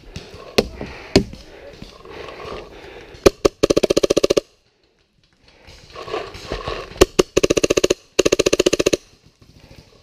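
Paintball marker firing: a few single shots, then three rapid strings of fast, evenly spaced shots, each lasting most of a second.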